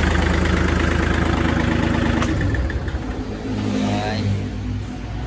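Kubota L4018 tractor's diesel engine running steadily. About two seconds in there is a short click, and the engine note changes and settles slightly lower.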